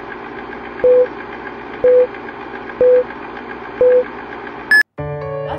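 Film-leader countdown sound effect: a steady projector-like whirring rattle under four low beeps exactly one second apart, then one short higher beep. Music starts about five seconds in.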